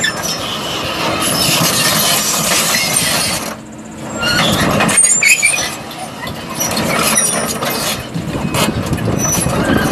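2006 Link-Belt 240 long-reach tracked excavator travelling, its diesel engine running under the squeal and clank of the steel track chains. The sound eases off for a moment about three and a half seconds in, then picks up again.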